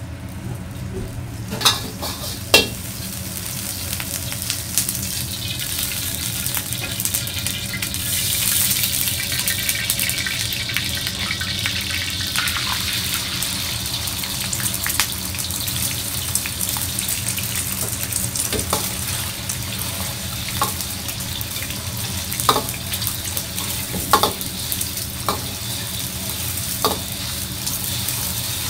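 Beaten egg frying in hot oil in a wok, a steady sizzle that swells about eight seconds in. A metal ladle knocks against the wok a few times in the second half.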